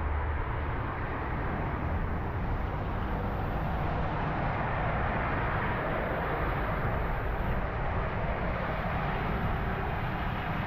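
Bicycle dashcam recording on a wet road: steady wind rumble on the microphone mixed with traffic noise and tyre hiss, as a lorry overtakes the bike close alongside.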